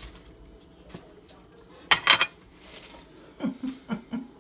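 A short, loud clatter of tableware about two seconds in as a burger is plated, then a few brief low voice sounds from a man near the end.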